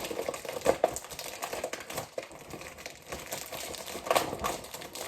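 Paper wrapping around a small toy figure being crinkled and torn open by hand, rustling with scattered sharp crackles.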